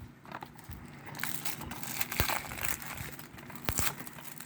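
Plastic shrink wrap being torn and crinkled off a DVD case, with several sharp clicks and taps of the plastic case among the crackling.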